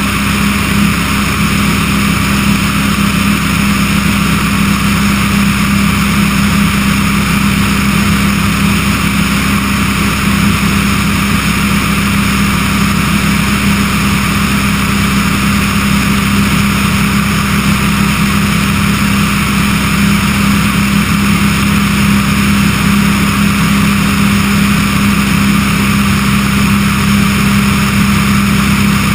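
Remos G-3/600 light sport aircraft in cruise flight: its engine and propeller drone steadily, mixed with wind rushing over a camera mounted outside on the wing.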